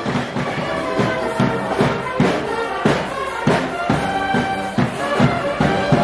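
Marching band playing carnival parade music: drum strokes about twice a second under wind instruments holding the tune.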